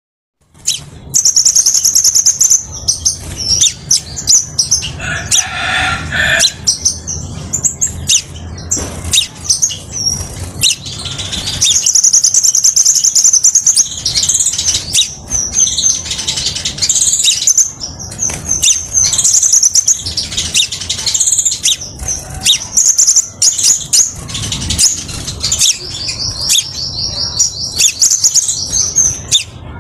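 Crimson sunbird (kolibri sepah raja) singing: a nearly continuous run of high, thin chirps and rapid trills, starting about a second in, over a low steady hum.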